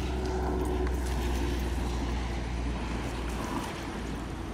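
A nearby road vehicle's engine running as a steady low hum, which fades about three seconds in. Near the end there is a faint splash as a snakehead strikes a frog lure on the surface.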